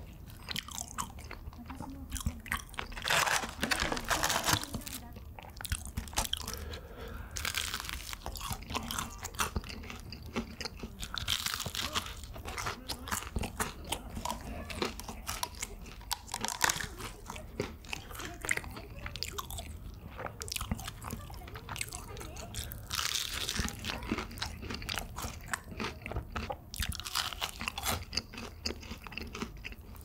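Crunchy fried chicken being bitten and chewed close to the microphone: irregular loud crunches amid a steady crackle of chewing.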